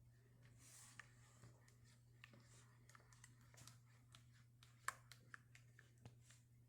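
Faint, scattered clicks and taps of hands handling a food-colouring bottle and bowl while drops of colouring go into glue mixture, with one sharper click about five seconds in, over a steady low hum.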